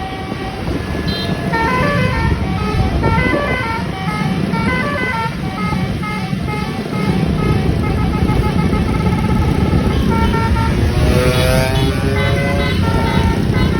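Indonesian 'telolet' multi-tone bus horn playing a fast tune of short notes that step up and down, over the engine's low rumble. About ten seconds in, the notes give way to a few rising glides before the tune resumes.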